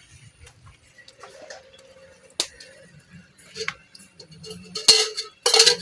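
Household utensils being handled: scattered clinks and knocks, a sharp click a couple of seconds in, and two louder clattering bursts near the end.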